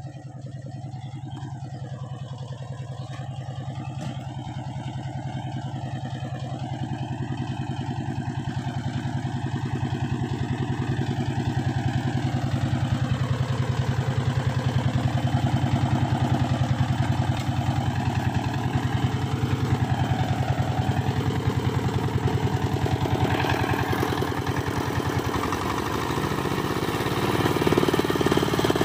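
Power tiller's single-cylinder diesel engine running steadily, getting louder throughout and loudest near the end.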